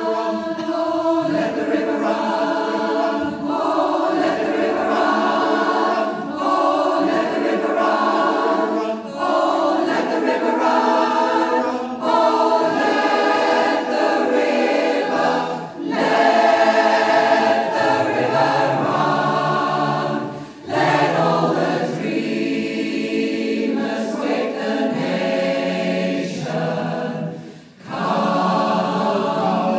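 Choir singing, phrase after phrase, with brief pauses between phrases.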